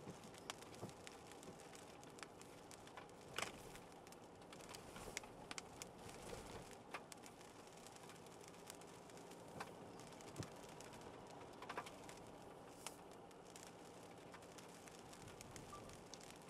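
Faint rain patter on a car: scattered single drops ticking at irregular intervals over a steady low hum.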